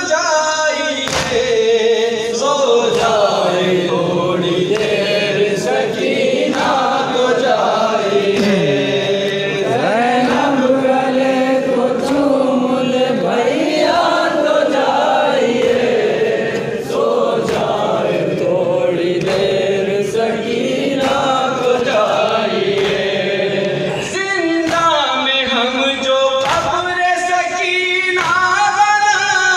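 A group of men chanting a noha, a Shia mourning lament, together in Urdu, with regular thumps keeping time that are typical of hands beating chests in matam.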